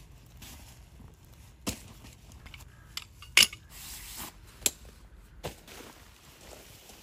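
Camping gear being handled while a tent is pitched: a handful of separate sharp knocks and clicks, with one louder snap a little before the middle.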